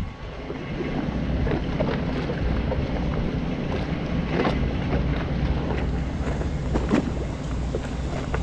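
Wind buffeting the microphone over a steady low drone, with a few faint knocks and clicks scattered through it.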